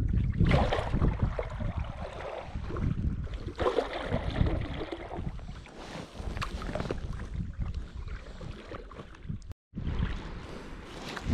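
Double-bladed kayak paddle dipping and pulling through the water in irregular strokes, with splashing and dripping, over a low rumble of wind on the microphone. A brief gap of silence near the end.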